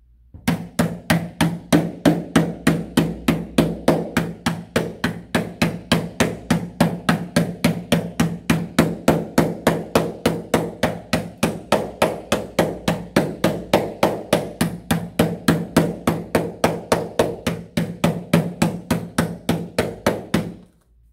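A wooden spoon pounding whole pecans in a plastic zip-top bag on a table, crushing them into small pieces. The blows are steady and even, about three or four a second, and stop shortly before the end.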